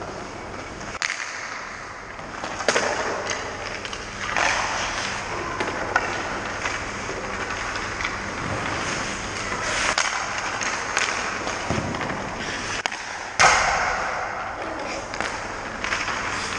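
Ice hockey skates scraping and carving on the rink, in surges, with sharp knocks of sticks and pucks several times; the loudest is a hard crack about thirteen seconds in.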